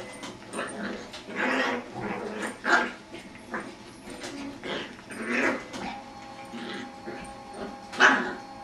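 Jack Russell terrier puppy making odd play noises at a beagle: a series of short whiny growls and yips in separate bursts, the loudest near the end.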